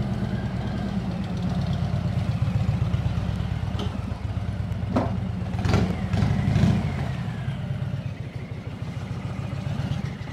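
Harley-Davidson V-twin engine running at low speed through a Jekill & Hyde valve exhaust, a steady low burble that gets louder for a moment about five to seven seconds in.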